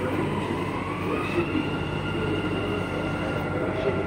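Dubai Metro train car standing at the platform with a steady electrical hum and whine; the whine rises in pitch about a second in and then holds steady.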